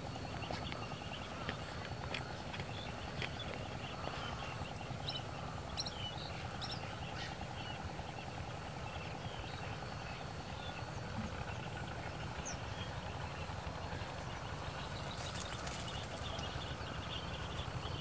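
Outdoor wetland ambience: a steady low rumble and hum under a few faint, short bird chirps around the middle, with some light clicks near the end.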